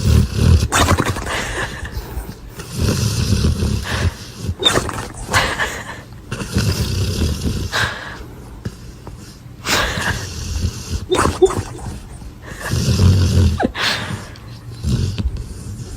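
A dog snoring: rumbling snores every two to three seconds, with sharp snorts in between.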